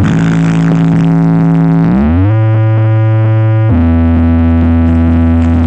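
Large outdoor sound system (Pindang Balap Audio) playing loud, sustained synthesizer bass tones during a sound-check warm-up. The held note glides up about two seconds in, then jumps abruptly to a different pitch just past the middle.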